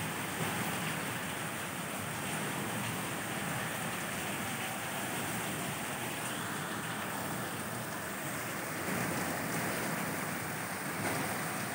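Steady rain falling on rooftops, an even hiss with no breaks.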